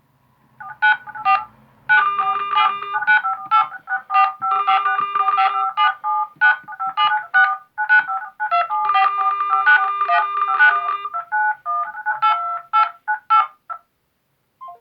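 Mobile phone ringtone: a synthesized melody of quick, short notes that stops shortly before the end.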